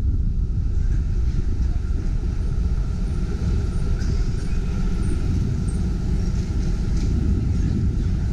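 Steady low rumble of a TTC CLRV streetcar running along a city street, picked up by a camera mounted on the outside of the car, with a few faint high chirps in the middle.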